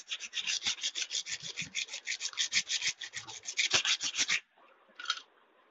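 Wet abrasive rubbed fast back and forth against the rusty steel blade of a large old pair of scissors, scouring off rust and sharpening it, about five scraping strokes a second. The strokes stop about four seconds in, with one short scrape near the end.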